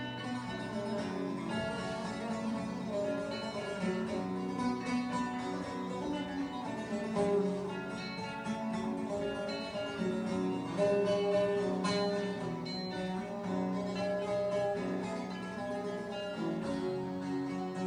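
Acoustic guitar and a second plucked string instrument playing together live, an instrumental passage of picked and strummed notes without vocals.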